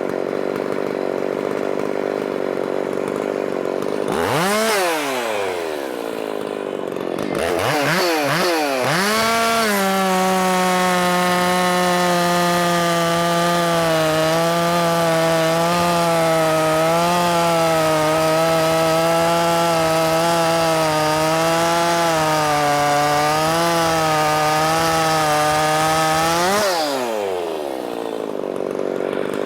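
Ported Makita 5600 (Dolmar 550) 56cc two-stroke chainsaw idling, blipped up and back down twice, then held at full throttle for about seventeen seconds with a slight waver in pitch, before dropping back to idle near the end.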